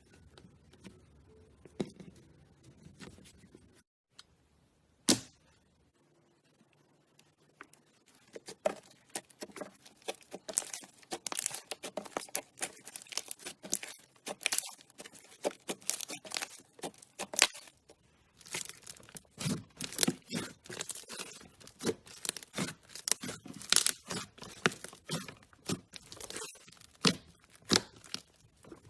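Hands squishing, pressing and stretching slime: sticky popping clicks and crackles, sparse at first with a single sharp snap, then quick and nearly continuous from about eight seconds in.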